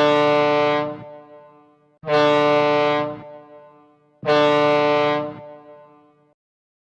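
Ship's horn sounding three long, deep blasts about two seconds apart. Each holds a steady pitch for about a second and then fades away.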